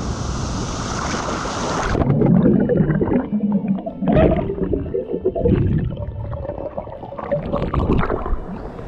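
Water gurgling and sloshing in irregular spurts, after a steady rushing noise that cuts off abruptly about two seconds in.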